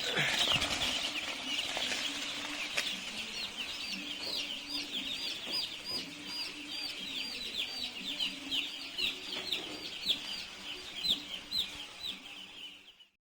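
A large flock of young broiler chicks peeping together: a dense, continuous chorus of short, high chirps, with a faint low hum beneath.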